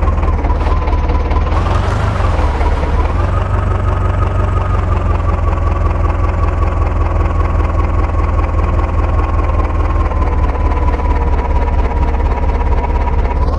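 Heavy diesel engine running steadily with a low, pulsing rumble and a high whine over it; the whine rises briefly about two seconds in, then settles.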